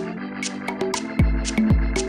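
Background music: sustained synth keyboard chords over a ticking percussion pattern, with a deep kick drum coming in about a second in and then falling about twice a second.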